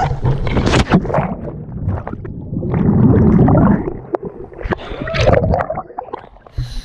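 A person plunging into a river pool: splashing on entry, then a loud muffled rush and gurgling of water around the submerged camera, and more splashing as she comes up, with a short voice sound from her about five seconds in.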